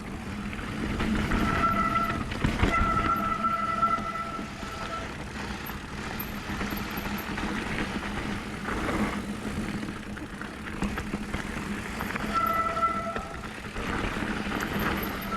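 Mountain bike disc brakes squealing in several bursts of steady pitch, each lasting one to two seconds, over rumbling wind and tyre noise of the bike rolling downhill.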